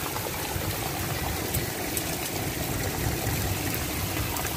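Heavy rain falling steadily on a soaked dirt yard, a continuous hiss scattered with the faint ticks of single drops.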